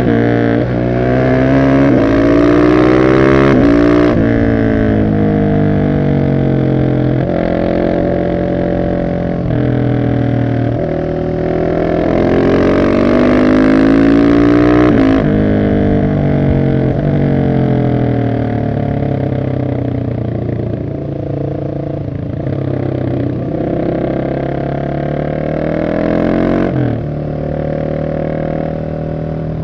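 Husqvarna 701 SM single-cylinder engine with an Arrow exhaust and removed catalytic converter, accelerating and backing off again and again. The pitch climbs and falls many times, dropping sharply a few times as the throttle is shut.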